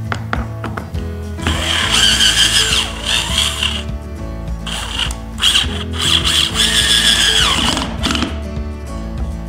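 PRIMERO cordless drill driver set to torque 5, its motor and gearbox whining as it drives a screw into hard nara oak with no pilot hole. It runs in two spells, and near the end of the second one the pitch sags as the motor slows under the load. Background music plays throughout.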